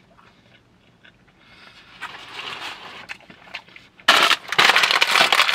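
Quiet chewing, then about four seconds in a bag of lime Hot Cheetos is picked up and its plastic crinkles and crackles loudly.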